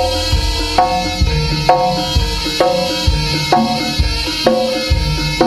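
Jaranan gamelan accompaniment: kendang drums beating over tuned gong strokes that ring out about once a second in a steady rhythm.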